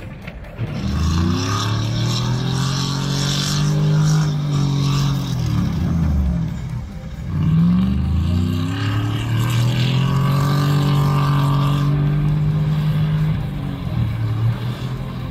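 A vehicle engine is revved hard and held at high revs for about five seconds, then drops back. This happens twice, with a shorter rev near the end. The engine is straining under load to pull a stuck semi truck out of deep snow, with tyres spinning in the snow.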